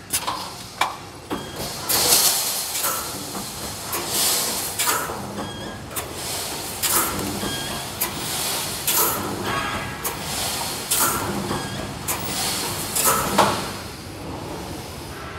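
Wire mesh welding machine running through its cycle: bursts of hissing noise with metallic clanks, repeating about once a second as it welds the cross wires and steps the mesh forward.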